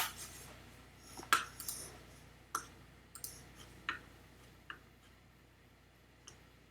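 A handful of separate clicks on a computer keyboard, about one every second, growing fainter toward the end.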